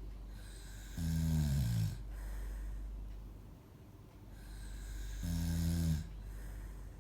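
Snoring: two long, low droning snores about four seconds apart, the first sliding slightly down in pitch, with quieter breathing between them.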